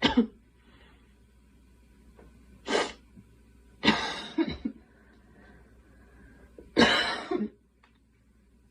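A girl coughing: four separate coughs spread over several seconds. The last two each trail off in a couple of smaller hacks.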